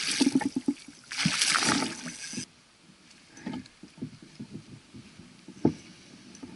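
Hooked northern pike thrashing at the surface beside a kayak: two bursts of loud splashing in the first two and a half seconds, then quieter sloshing and a few light knocks, one sharper knock near the end.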